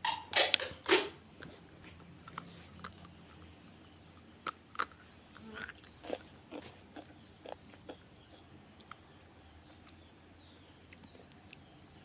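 Someone biting into and chewing crunchy food. There are a few loud crunches in the first second, then scattered fainter crunching clicks for several seconds that die away in the second half.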